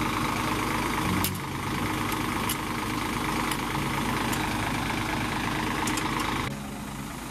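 Diesel coach engine idling steadily, with a few short sharp clicks over it; the sound drops in level near the end.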